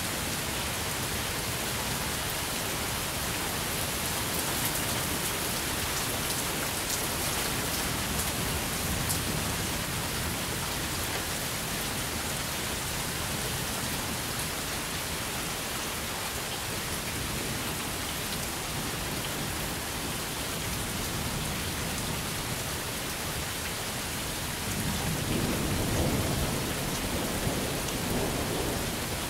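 Steady rain falling during a thunderstorm, with a low roll of thunder building about four seconds before the end.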